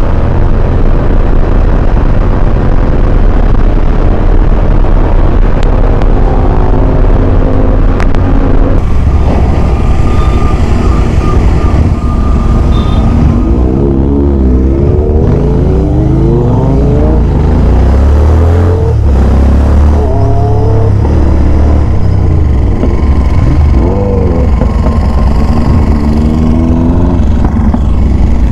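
Royal Enfield Interceptor 650's parallel-twin engine running loudly on the move, with wind rushing over the microphone for the first nine seconds or so. In the second half the revs rise again and again as the bike accelerates up through the gears.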